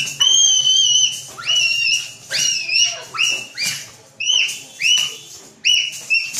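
A series of high-pitched whining calls. Each slides quickly up and then holds its note, about one a second, with one longer call near the start.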